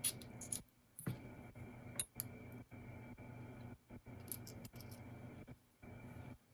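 Screwdriver working at the side of a Goal V18 lock core to take it apart: a few sharp, light metal clicks and scrapes, with a cluster of ticks about four seconds in.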